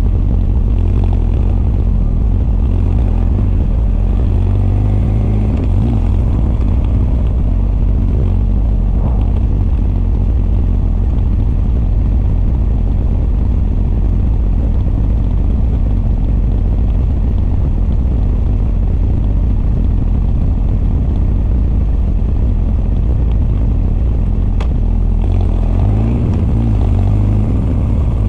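Honda CB1300 SF's inline-four, breathing through Keihin FCR41 carburetors and an r's gear Wyvern exhaust, running steadily under way, with intake and exhaust both heard. There is a brief pickup in the engine note near the end.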